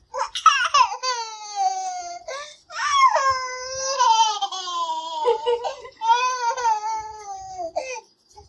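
Baby crying in three long, high-pitched wails, each falling in pitch, with short catches of breath between them.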